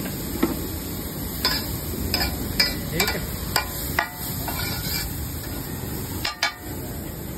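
Steel spatula clanking and scraping on a large flat tawa griddle in irregular strikes, about one or two a second, as pav cubes and masala are tossed and chopped. A steady sizzle of frying runs underneath.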